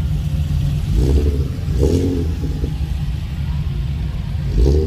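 A car's engine and road rumble, steady and low, with short higher-pitched sounds about one second in, two seconds in and near the end.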